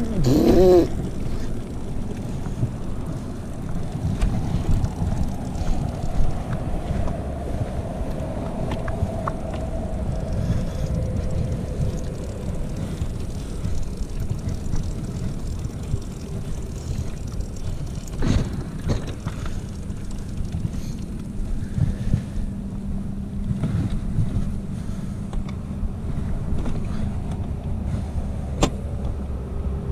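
KTM 125 EXC two-stroke single-cylinder dirt bike engine running while the bike is ridden, with wind buffeting the microphone. The revs swing up and down briefly at the start, and the engine settles into a steadier low note over the last several seconds.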